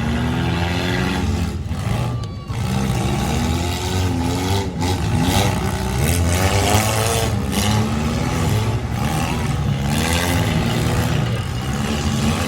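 Several four-cylinder demolition derby cars' engines revving at once, their pitches rising and falling over one another as the cars accelerate and back off.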